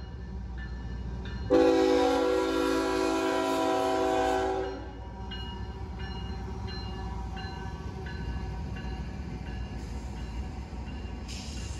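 Norfolk Southern diesel freight locomotive's air horn sounds one long chord blast about a second and a half in, lasting about three seconds, the closing long blast of the crossing warning. The locomotives' engines rumble past, and the grade crossing's warning bell dings repeatedly once the horn stops.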